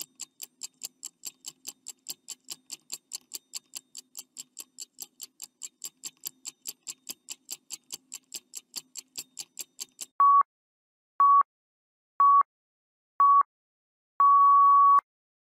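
Countdown-timer sound effect: a clock ticking rapidly, about four and a half ticks a second, for ten seconds. It then switches to four short steady beeps about a second apart and a final longer beep that signals time is up.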